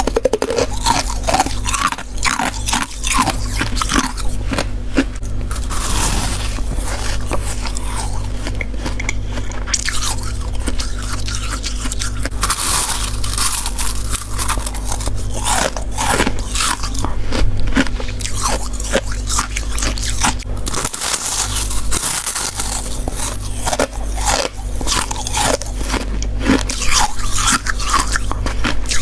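Close-up biting and chewing of white freezer frost: dense, irregular crunching throughout, over a steady low hum.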